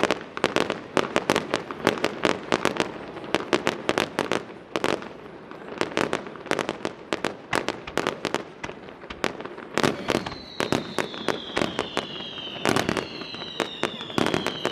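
Fireworks display: a rapid, dense run of sharp bangs and cracks, several each second. From about ten seconds in, several high whistles join them, slowly falling in pitch.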